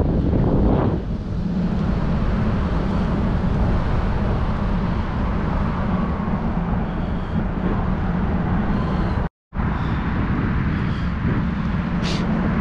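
Skatebolt Tornado electric longboard rolling over asphalt: a steady, loud low rumble of the wheels on the pavement. The sound cuts out completely for a split second about nine seconds in.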